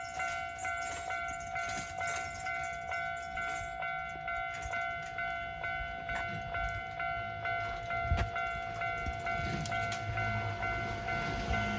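Japanese railway level crossing warning bell ringing in a fast, even, repeating rhythm of clear ringing tones. A passing train's low rumble grows beneath it near the end.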